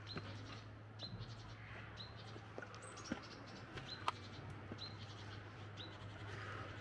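A small bird repeating a short, high chirp about once a second, with a couple of sharp clicks and a steady low hum beneath.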